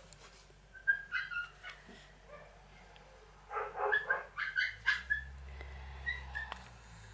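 Shiba Inu puppy yipping and whimpering in short, high-pitched calls, in several bursts, the loudest cluster a little past the middle.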